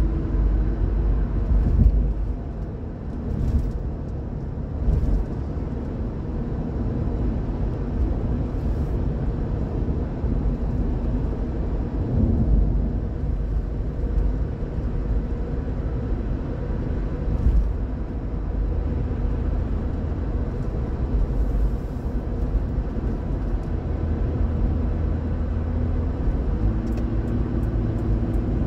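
Steady road noise of a car driving at highway speed, heard from inside the cabin: a low, even rumble of tyres and engine.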